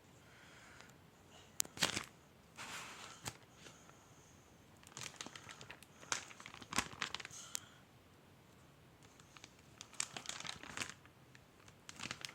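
Crinkling and rustling from something being handled, in several short bouts of sharp crackles with quiet gaps between.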